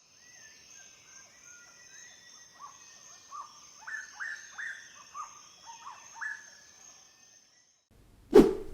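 Birds chirping: a run of short, quick rising-and-falling notes that grows denser midway, over a faint high steady tone. The chirping stops near the end, and a loud thump follows.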